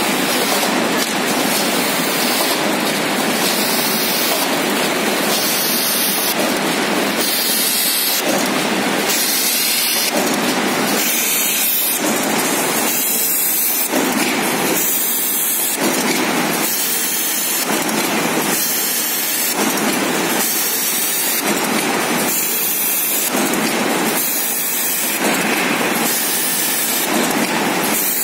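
Automatic PP woven bag cutting machine running: a loud, steady mechanical hiss that pulses in an even cycle about every one and a quarter seconds.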